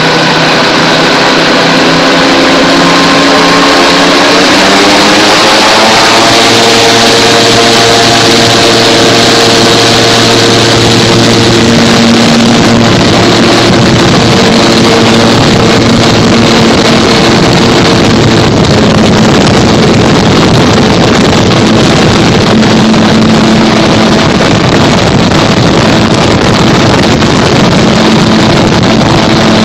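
Gyrocopter engine and propeller rising in pitch as power is brought up, about four to six seconds in, then running steadily at the higher setting. A steady rush of wind noise runs underneath.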